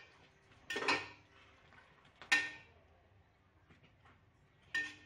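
A steel spoon clinking and scraping against an aluminium pressure cooker while stirring the liquid inside: three ringing metal clinks, about a second in, midway and near the end.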